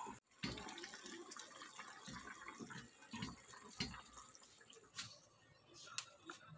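A wooden spoon stirring chicken tinola broth in a pot: liquid sloshing, with several soft low knocks in the first few seconds and a few sharp clicks near the end.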